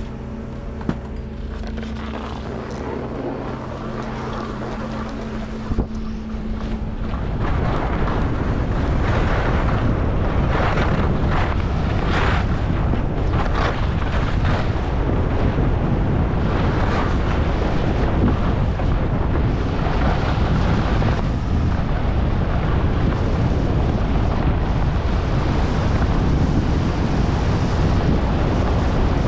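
Skiing fast down a steep piste: wind rushing over the action camera's microphone and skis scraping on snow through the turns, growing louder after about seven seconds. A steady low hum with a few held tones opens the clip.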